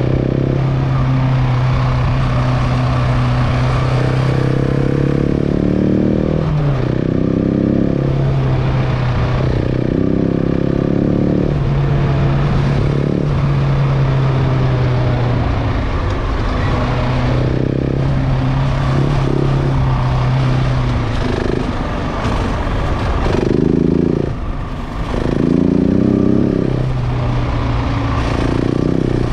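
KTM 690 Enduro's single-cylinder engine under way off-road. It holds a steady note, then rises in pitch in repeated pulls of acceleration through the gears, several times through the clip. It drops off briefly about two-thirds of the way in.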